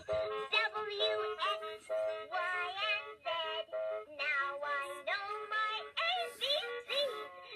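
Electronic children's toy playing a synthesized sung tune through its small speaker, short notes one after another with sliding pitch and a thin, tinny sound.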